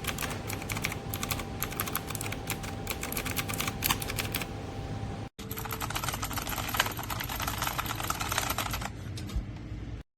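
Rapid typing on an RK Royal Kludge S108 mechanical keyboard with clicky blue switches, a dense run of key clicks. It breaks off abruptly about five seconds in, then resumes.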